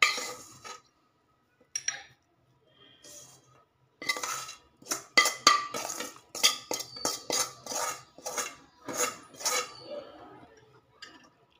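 Metal spoon scraping and clinking against a steel plate as masala is pushed off into a jar. After a quiet start, a quick run of scrapes and clinks with a ringing note begins about four seconds in and dies away near the end.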